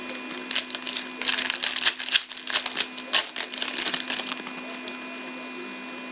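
Wrapper of a Panini Select hockey card pack being torn open and crinkled by hand, a rapid irregular crackle that dies away after about four seconds.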